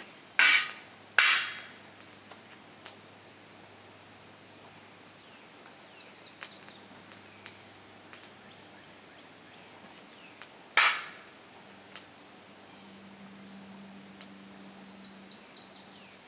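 Sharp metallic clanks with a short ring, two close together near the start and one more about eleven seconds in: a steel skimming tool knocked against the crucible while skimming dross off molten aluminium.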